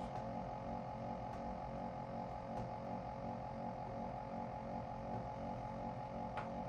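Stepper motor of a 3D-printed robot arm driving a belt-driven joint: a steady electrical whine made of a few tones over a low hum, one tone rising slowly in pitch as the joint moves.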